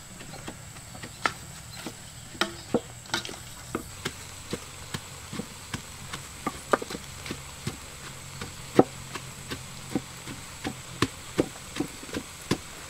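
Light, sharp knocks and clicks, unevenly spaced at about two to three a second, over a faint steady low hum and a thin steady high tone.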